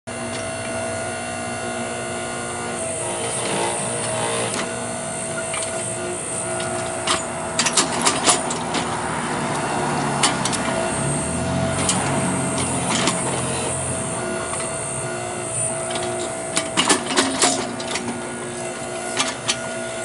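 Homemade electric backhoe's motor-driven hydraulics running steadily with a quiet hum while it digs, with sharp clanks in two short clusters. A car driving by on the street swells up through the middle and is louder than the backhoe.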